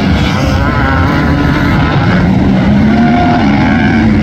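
Motocross dirt bike engines running on the track, the engine pitch rising and falling as the riders open and close the throttle.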